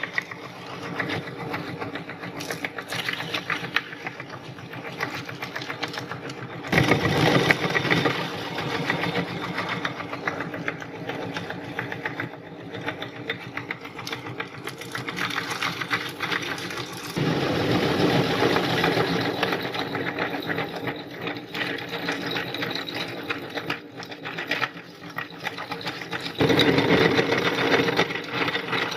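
Meat grinder motor running while grinding items fed into it, a continuous whirring with grinding and crunching. It grows louder three times, about a quarter, a little over half and nine-tenths of the way through, as new material goes through.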